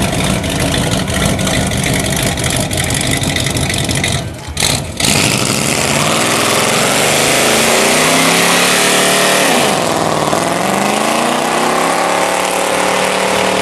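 Chevrolet El Camino's engine revving hard through a burnout: a choppy engine note for about four seconds, a brief drop, then loud tyre squeal over the engine climbing in revs, falling away and rising again about ten seconds in.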